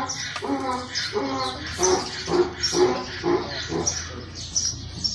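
A dog barking repeatedly in a quick series, with small birds chirping.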